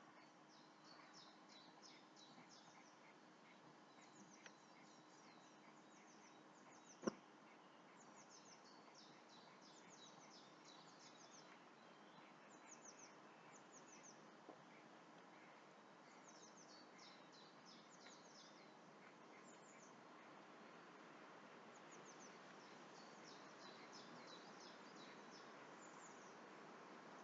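Faint dawn birdsong: runs of quick, high chirps from small birds repeating every few seconds over a soft steady background hiss. A single sharp click about seven seconds in.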